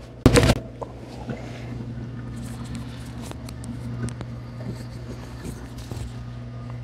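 A loud, sudden crack from a chiropractic neck adjustment about a third of a second in. A steady low hum with faint scattered ticks follows.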